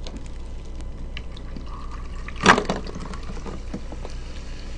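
Carbonated water poured from a plastic bottle into a glass with ice, with one sharp clink about halfway through.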